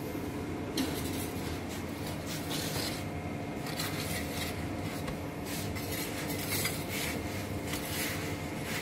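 Metal pizza peel scraping and clinking lightly against the stone floor of a wood-fired oven as a pizza is turned, in a few scattered strokes over a steady kitchen hum.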